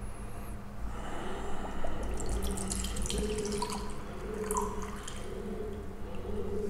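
Whisky poured from a miniature glass bottle into a glass tumbler, a thin stream of liquid trickling and dripping into the glass for several seconds.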